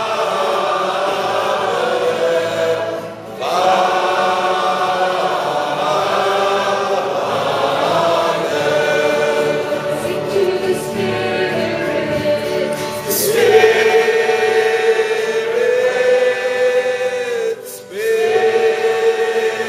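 Church choir and congregation singing together, long held notes with short breaks between phrases about three seconds in and near the end.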